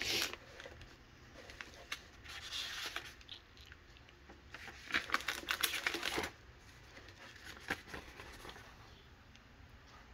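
Paper rustling and crinkling as an instruction manual is handled and its pages turned, in several short bursts; the loudest comes about five to six seconds in.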